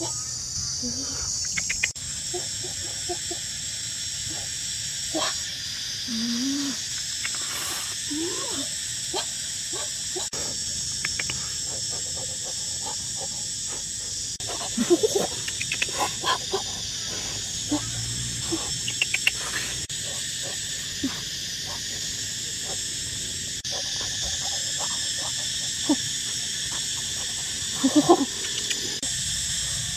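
Steady high-pitched chorus of insects, with short sharp animal sounds and clicks scattered over it, loudest in two clusters around the middle and near the end.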